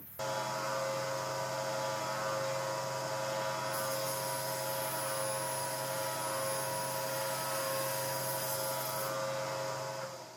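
Table saw running at speed: a steady motor hum and whine that starts abruptly just after the beginning and fades away near the end.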